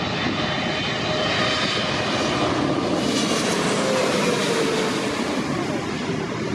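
Jet engines of a Cathay Pacific airliner passing low overhead on approach to land: a loud, dense rush of engine noise that swells to a peak about three to four seconds in, with a whine that drops in pitch as the plane goes by.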